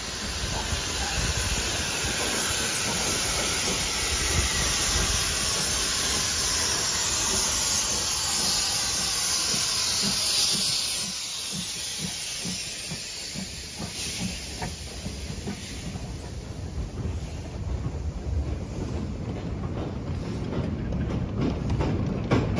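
Steam locomotive drawing into the platform with steam hissing loudly for about the first ten seconds. Then the hiss drops, and the engine and a train of goods wagons roll slowly past with a regular beat of wheels over the rail joints.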